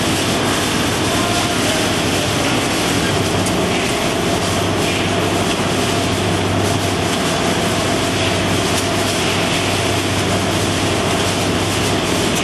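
Roller conveyor line running with cardboard boxes riding over the rollers: a steady mechanical rattle with a constant low hum and many small clicks.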